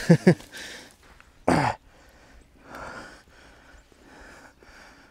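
A man's short two-burst laugh, then a loud falling sigh about a second and a half in, followed by soft breathing.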